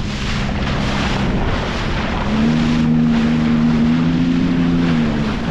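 Sea-Doo Fishpro Sport 170 personal watercraft's engine running. It speeds up about two seconds in and eases off just before the end. Wind noise on the microphone and rushing water run under it.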